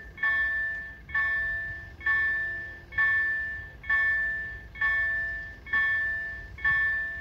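Level crossing warning bell ringing in a steady series of strikes, a little faster than once a second, each dying away before the next. It is the crossing's warning that a train is approaching, with the barriers down.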